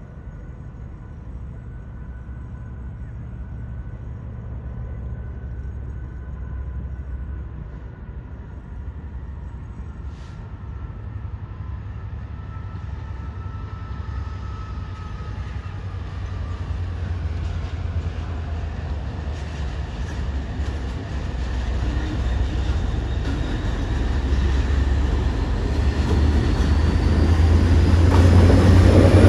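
A train approaching through the station, its low rumble growing steadily louder, with faint high tones that slowly fall in pitch.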